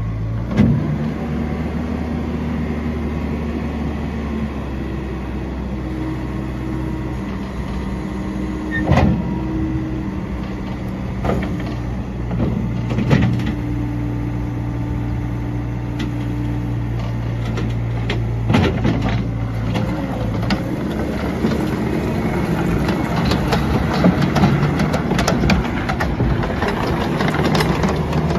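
Yanmar diesel engine of a John Deere 317G skid steer loader running steadily, its pitch shifting a few times, with occasional sharp clanks. The last several seconds are busier, with more rattling.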